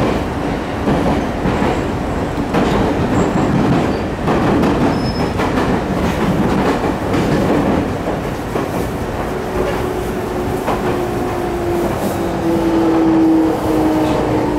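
A JR 209 series 3100 electric train with a GTO-VVVF drive and MT68 traction motors, heard from inside the car: wheels rumbling and clicking over the rails. From about two-thirds in, a steady inverter and motor tone slides slowly down in pitch.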